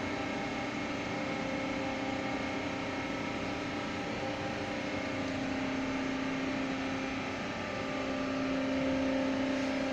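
Steady hum of running industrial machinery with a constant droning tone, swelling slightly near the end.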